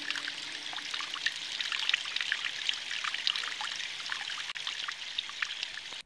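Water trickling and dripping in many thin streams from a mossy, fern-covered rock face, a steady splashing patter of drops.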